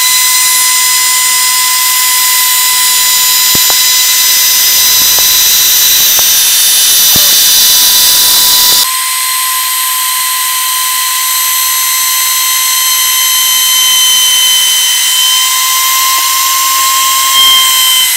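A 2 HP router mounted as the spindle of a CNC machine, running with a steady high whine while its cutter surfaces the wooden spoilboard table. About nine seconds in, the sound changes abruptly and the lower rushing noise drops away.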